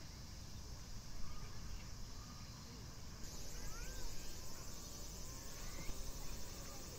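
Late-summer park ambience: insects trilling steadily, with a second, pulsing insect trill joining about three seconds in. A bird gives a few short chirps near the middle, over a low rumble.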